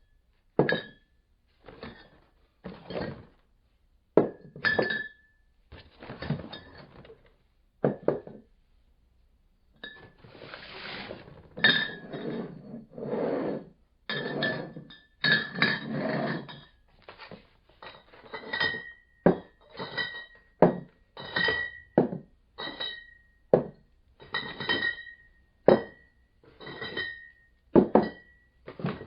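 Empty glass beer bottles clinking and knocking together inside a cardboard beer case as the case is jostled, in a run of separate knocks with a ringing glass chink. About ten seconds in there is a longer stretch of rattling as the case is shaken. After that come more regular knocks, roughly one or two a second.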